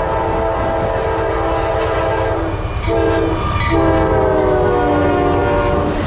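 Locomotive air horn sounding for a grade crossing: a long blast, a short one, then a final long blast that drops a little in pitch as the locomotive passes close by. The low rumble of the passing freight train runs underneath.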